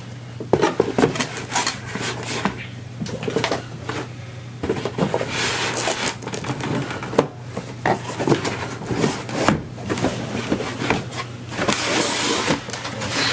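Sneakers being packed back into a cardboard shoebox: irregular rustling, scraping and knocking of shoes against cardboard, with the box itself handled near the end.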